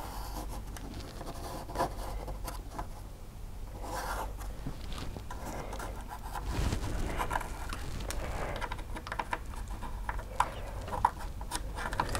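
Pencil scratching in short, irregular strokes as it traces around the base of a camera bracket on a baseboard, with a couple of sharp clicks near the end.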